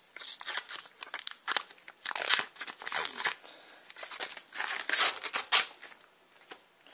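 Plastic wrapping crinkling and crackling in irregular bursts as it is handled and pulled away from a boxed hard drive.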